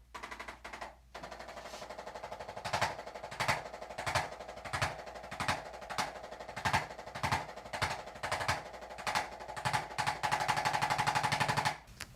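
A small motorised device buzzing with a rapid rattle, swelling into stronger pulses about every two-thirds of a second, then running steadily for a couple of seconds before it cuts off near the end.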